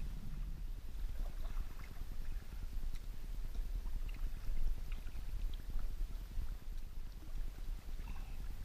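Kayak out on open water: a steady low rumble of wind on the microphone, with faint small water splashes and drips scattered through it.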